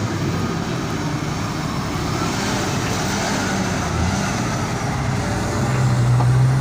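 Heavy truck engine running steadily, most likely a dubbed sound effect for the toy dump truck. A deeper, steady drone grows louder near the end.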